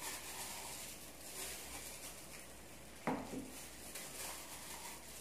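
Faint papery rustling of onion skin being peeled by hand, with a single short knock about three seconds in.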